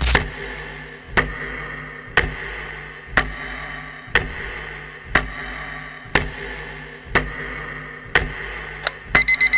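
Countdown timer ticking once a second over a steady low hum, ending with a quick run of beeps.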